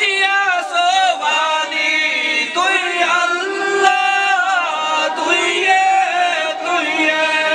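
A man's voice chanting a melodic religious recitation into a microphone, in long held notes that slide and waver between pitches.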